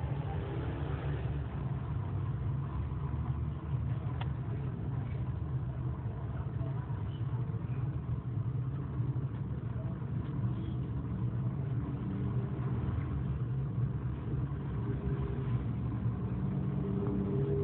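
Steady low background rumble or hum, even throughout with no distinct events.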